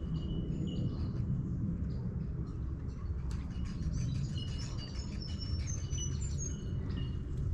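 Birds calling with short, repeated high chirps, growing busier from about three seconds in, over a steady low background noise.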